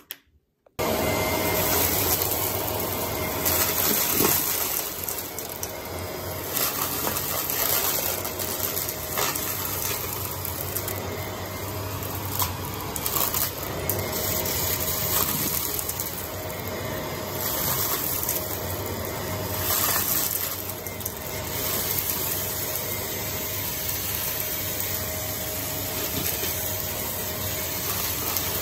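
Vacuum cleaner starting abruptly about a second in, then running steadily with occasional sharp clicks from debris being sucked up.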